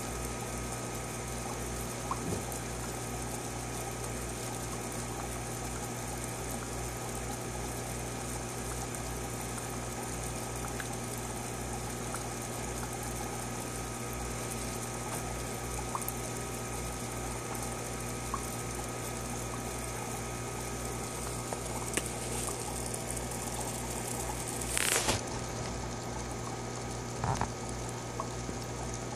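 Aquarium filter running: steady trickling water over a low hum, with a few brief knocks near the end.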